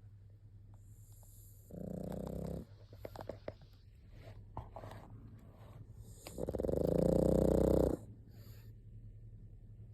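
Pug snoring: a short snore about two seconds in and a longer, louder one around six to eight seconds. Quieter breathing noises come between them.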